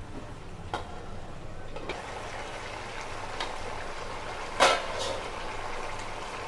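Thick mutton curry simmering in a pan, a steady bubbling hiss that gets a little louder about two seconds in. There are a few light clicks, and a louder short clatter a little past halfway.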